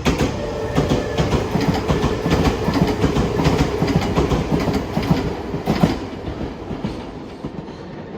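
Train running on the rails, wheels clacking rapidly over the rail joints with a steady tonal ring under them. It cuts in abruptly and fades over the last couple of seconds.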